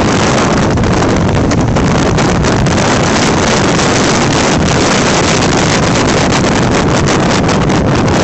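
Heavy wind noise on the microphone over a Honda Forza 300 scooter's single-cylinder engine pulling hard at high, steady revs under acceleration. The CVT, fitted with lighter 18 g Malossi variator rollers, holds the engine speed while road speed rises.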